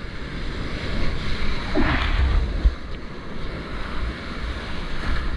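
Whitewater rushing and splashing around a surfboard riding a small breaking wave, with wind buffeting the microphone.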